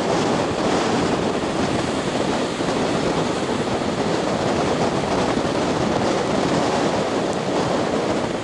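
Steady rush of surf mixed with wind blowing across the microphone.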